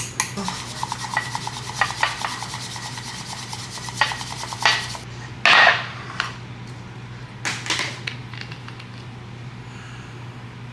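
Fast, even hand-whisking strokes scraping in a cup for about five seconds, while a matcha drink with cream cold foam is being made. Then a short loud rush of noise and a few scattered clicks and knocks of kitchen utensils.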